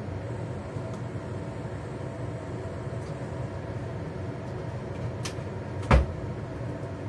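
Steady low kitchen hum, then a faint click and, about six seconds in, a single sharp knock of a kitchen cabinet door shutting.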